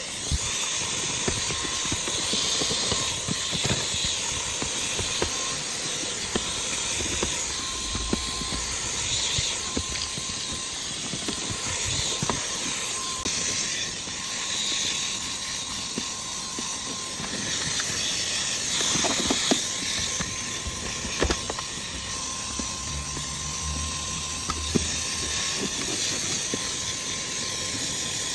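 Kiwi seat-washing machine (upholstery spray-extraction cleaner) running steadily: a hissing suction motor with a faint steady whine, with occasional short knocks as the nozzle works over the seats.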